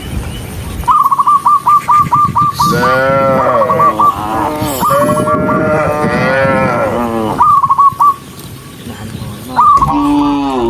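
Cattle mooing: two long, drawn-out moos whose pitch bends, the second longer, with another starting near the end. Between them come rapid runs of short high chirps, several a second.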